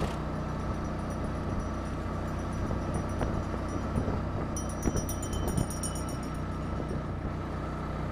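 Tuk-tuk (auto-rickshaw) engine running steadily while driving, heard from inside the open passenger cab, with road noise and a few light knocks and rattles about halfway through.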